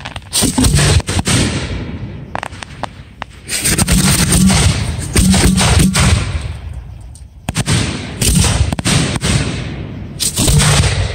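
Fireworks display: aerial shells bursting in quick volleys of sharp bangs and crackles, a new volley every two or three seconds, each one dying away in a fading rumble.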